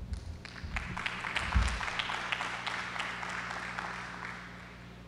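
Small audience applauding, building about a second in and fading out near the end, over a steady low hum.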